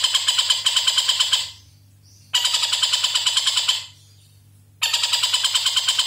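Oriental dollarbird (tengkek buto) giving its rapid, harsh chattering call of about eight to ten notes a second. It calls in three bouts: one stops about a second and a half in, another runs from about two to nearly four seconds, and a third starts just before five seconds.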